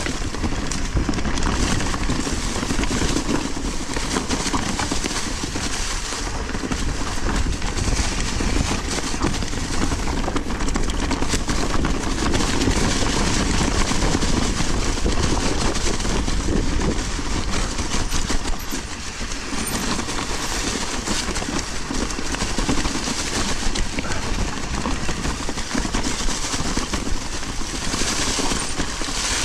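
Mountain bike riding a dirt trail: steady tyre and wind noise with constant rattle and clatter from the bike over rough ground, easing briefly about two-thirds of the way through.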